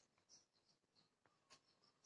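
Near silence: quiet outdoor ambience with faint, scattered high chirps and a few soft ticks.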